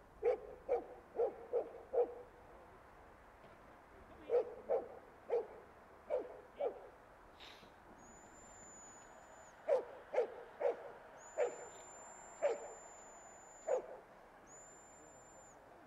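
A young spitz-type hunting dog bay-barking at a stuffed bear dummy: short barks about two a second, in three runs of five or six with pauses between.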